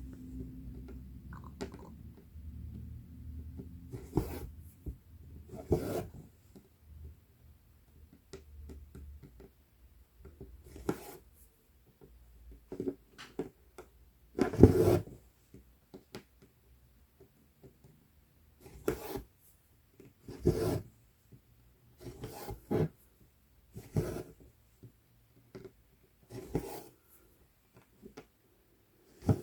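Embroidery floss being drawn through 11-count Aida cloth with a needle, a short rasp every one to three seconds as each stitch is pulled through.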